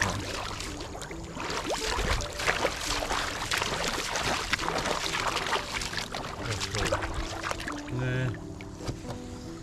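Water splashing and sloshing in irregular bursts, with background music playing a tune over it.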